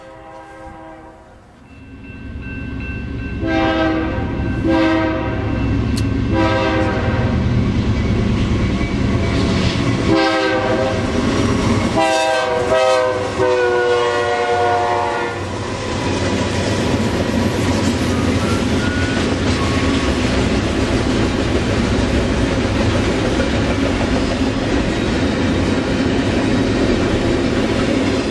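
A BNSF diesel freight locomotive sounding its multi-tone horn for a grade crossing: several shorter blasts, then a long one whose pitch drops as the locomotive passes. From about halfway in, the steady loud rumble of the locomotives and double-stack container cars rolling by on the rails.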